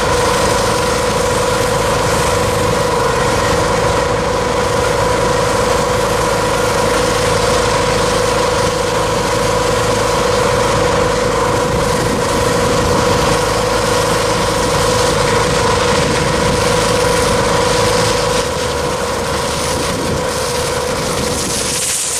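Hydroseeder's engine and pump running steadily while mulch slurry is sprayed from the hose, a constant droning hum. About three-quarters of the way through, it drops slightly in level and the deepest rumble fades.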